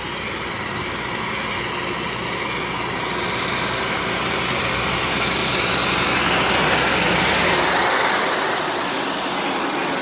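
A truck passing by: engine and road noise that builds slowly to its loudest about seven seconds in, then begins to fade.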